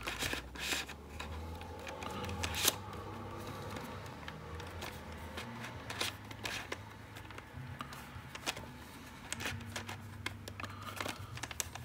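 Plastic pieces of a VeryPuzzle Icosahedron V1.0 twisty puzzle clicking as its faces are turned by hand, turning smoothly, in quick irregular clicks with a sharper one about two and a half seconds in.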